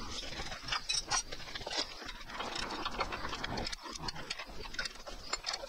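Irregular small clicks and taps of a metal lever and cable being handled and fitted into a bracket on a roller mower's handlebar.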